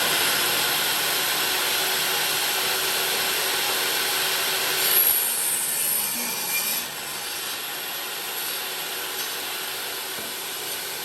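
Power saw ripping a wooden board lengthwise, a steady cutting noise; about seven seconds in it drops in level as the cut finishes, and the saw runs on.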